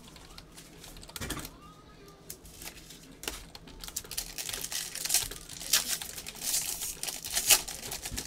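Foil wrapper of a 2019 Tier One baseball card pack being torn open and crumpled by gloved hands. It gives sharp crinkling crackles that come thicker and louder from about halfway through.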